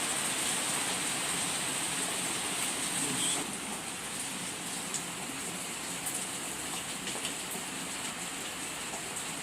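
Steady hissing noise, like rain or a fan, easing slightly about three and a half seconds in, with a few faint clicks.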